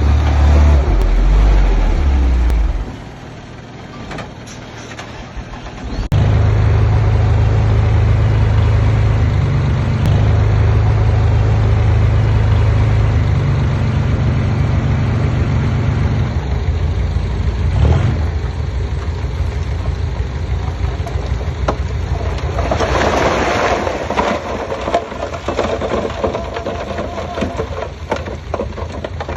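Diesel engine of heavy earthmoving machinery running. It falls away from about three seconds in, comes back loud and steady at about six seconds, and a burst of harsher noise joins it about 23 seconds in.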